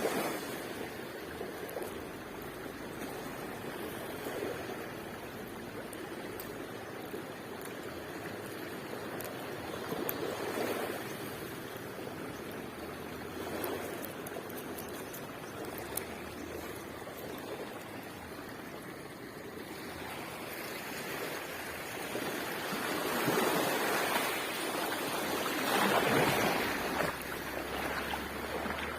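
Sea waves washing up the beach, swelling louder about ten seconds in and again, most strongly, a little before the end.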